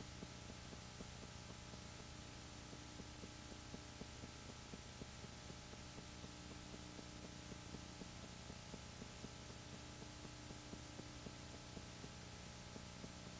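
Super-8 film projector running: a faint steady motor hum with rapid light clicking.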